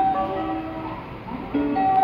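JR West train-approach melody: a short looping tune of clear notes, repeating about every two seconds, announcing a train arriving at the platform.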